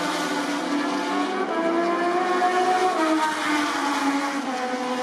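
Several Moto2 bikes' Triumph 765 cc three-cylinder engines running at once at different pitches, held at raised revs with small rises and dips as the riders line up for practice starts.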